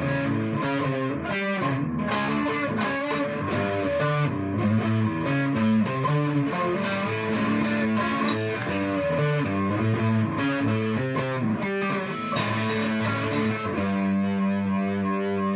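Modded solid-body electric 12-string guitar, its string pairs tuned in octaves, playing a picked riff of quick notes and chords, ending on a held, ringing note about two seconds before the end.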